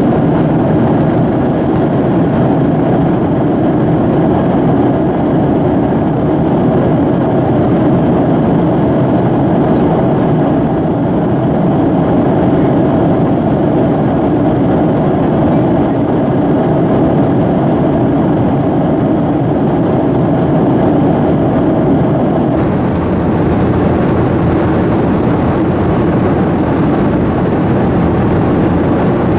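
Steady cabin noise inside a Boeing 737-800 in flight: the even rush of airflow over the fuselage mixed with the drone of its CFM56 turbofan engines. The hiss dulls slightly about 22 seconds in.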